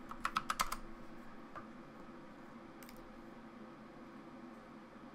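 Computer keyboard typing: a quick run of about six keystrokes in the first second, then two lone clicks later on, over a faint steady hum.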